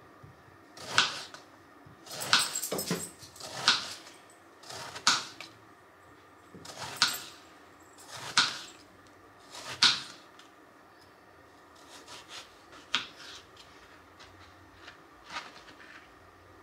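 Kitchen knife slicing a peeled eggplant into rounds on a plastic cutting board: each stroke cuts through the flesh and ends with a tap on the board, about one slice every second and a half. The strokes turn softer and less regular after about ten seconds.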